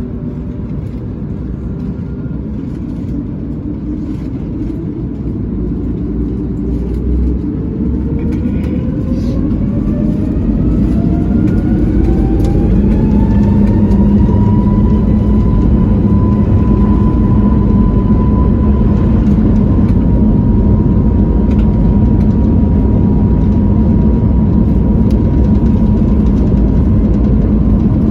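Airbus A321neo's Pratt & Whitney geared turbofan engines, heard from inside the cabin, spooling up to full takeoff thrust: a whine rises steadily in pitch for about ten seconds, then holds at a steady high tone over a loud, growing rumble.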